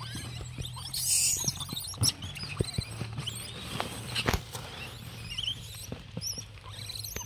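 Dry straw and paper packing rustling and crackling as an apple box is unpacked by hand, with scattered sharp taps and knocks. The loudest rustle comes about a second in.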